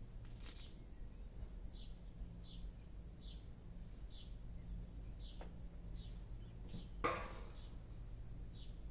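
A small bird chirping over and over, a short high note roughly once or twice a second, over a steady low background hum. About seven seconds in there is one louder, brief sound.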